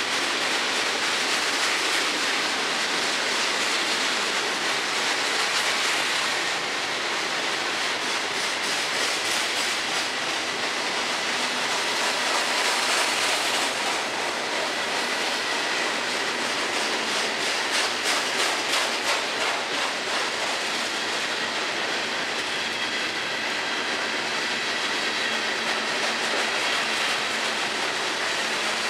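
Freight train hopper cars rolling past: a steady noise of steel wheels on rail, with a run of rapid clicking from the wheels a little past the middle.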